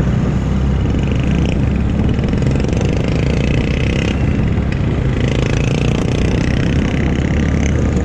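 Kymco Super 8 125cc scooter's single-cylinder four-stroke engine running steadily while being ridden, with road and wind noise.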